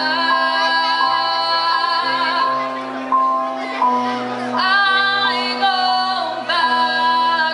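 Female singer's amplified voice holding long notes with vibrato, accompanied by piano.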